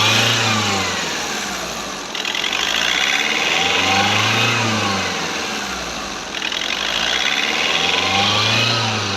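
Skoda Rapid diesel engine revving up and easing back by itself, three swells about four seconds apart. The ECU is running its automatic routine to set the pre- and post-injection after an injector replacement.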